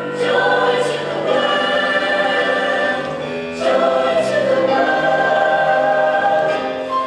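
Mixed-voice show choir singing sustained chords in close harmony, moving to a new held chord about three and a half seconds in.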